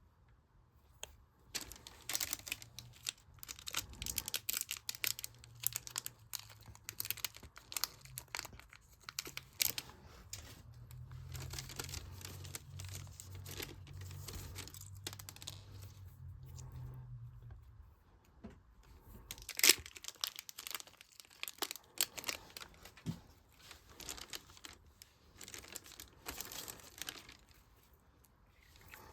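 Slime mixed with beads being squished and kneaded by hand: a dense, irregular run of crackles and pops, with a short lull about two-thirds of the way through.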